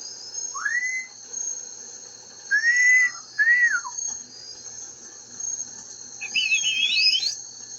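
Pet parrots whistling: one rising whistle, then two short arched whistles, then a warbling two-part whistle near the end. A faint steady high-pitched hiss runs underneath.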